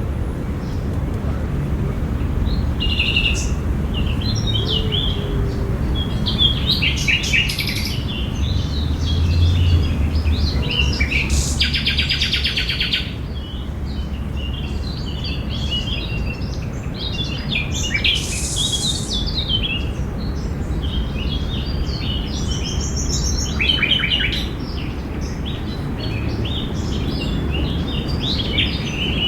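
Several birds chirping and singing, short calls and trills overlapping one another, over a steady low rumble.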